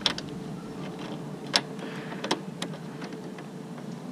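Sharp metal clicks, about four spread over four seconds, as pliers grip and work the spring clamp on a radiator hose, with a faint steady hum underneath.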